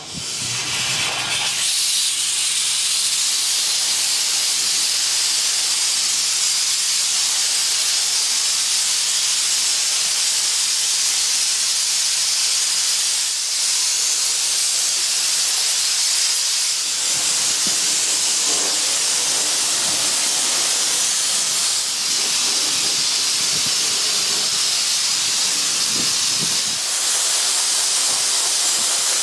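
Abrasive blasting nozzle spraying garnet grit from a compressor onto a soft brick wall: a loud, steady hiss of air and grit, rising to full strength within the first couple of seconds.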